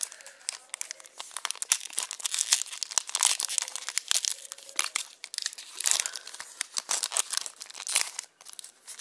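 Foil wrapper of a Pokémon XY booster pack crinkling and tearing as it is ripped open by hand: a dense run of crackles that stops shortly before the end.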